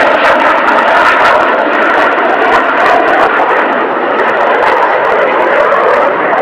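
Hornet fighter jet's twin jet engines during a low display pass: a loud, steady jet noise with a crackle through it.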